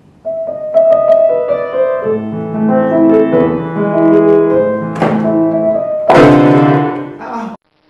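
Grand piano played, single notes at first and then fuller chords, with a sharp knock about five seconds in. About six seconds in comes a loud, dense clash of many notes as a cat walks onto the open piano, cut off abruptly about a second and a half later.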